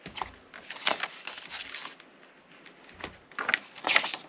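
Disc packaging being handled: irregular clicks and crackles of cases and packaging being moved and turned over, loudest about a second in and near the end.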